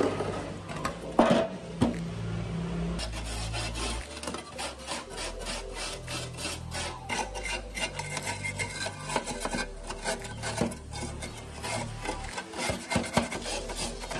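Hand-worked rasping strokes on the rusty machine's metal parts, as in filing or sanding, going in a quick even rhythm of about two to three strokes a second from about four seconds in.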